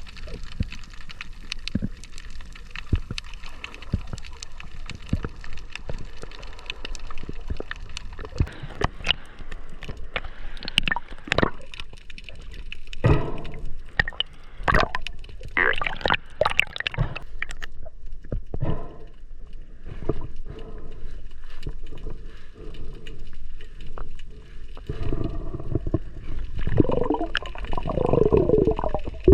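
Water gurgling and bubbling with many scattered sharp clicks; from about 25 seconds in, a louder stretch of wavering, warbling bubbling.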